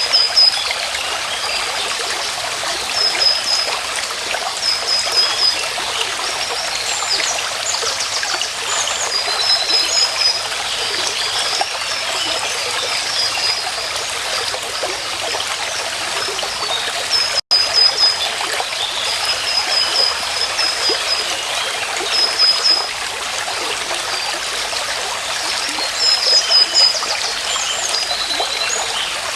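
Stream water flowing steadily, with short high calls, each a quick run of a few notes, repeating every second or two above the water.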